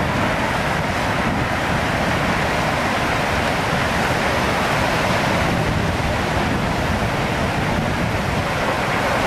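Tsunami floodwater rushing and churning through streets and around houses: a loud, steady rush of water.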